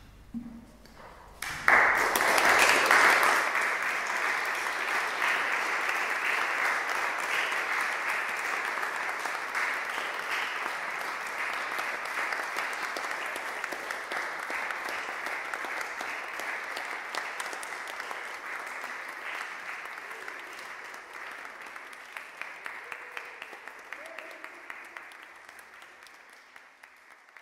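Small audience applauding in a stone cathedral nave. The clapping breaks out suddenly about two seconds in, then slowly thins and fades to a few scattered claps near the end.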